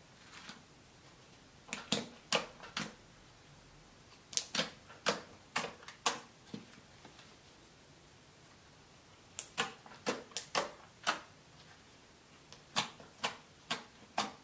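Slime being squeezed and poked by hand, making sharp little clicks and pops in quick runs of four to seven, with pauses of a few seconds between runs.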